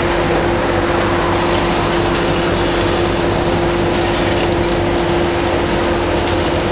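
Hitachi ZX650 demolition excavator working, its diesel engine and hydraulics making a loud, steady drone with a steady whine, and a few faint cracks from the jaws biting into the building.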